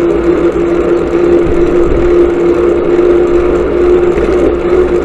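Motorcycle engine running at a steady speed while riding on the road, a constant even drone that neither rises nor falls.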